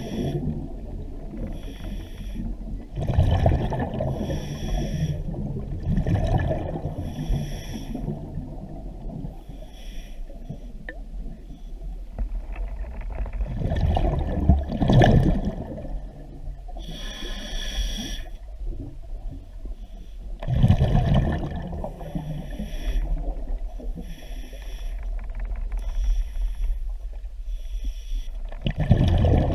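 Scuba diver breathing underwater through a regulator: exhaled bubbles rush out in loud bursts about four times, with hissing inhalations between.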